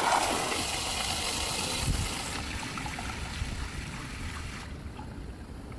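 Ailani N50 smart toilet running its big flush: water rushing through the bowl, loudest for the first couple of seconds, then gradually fading.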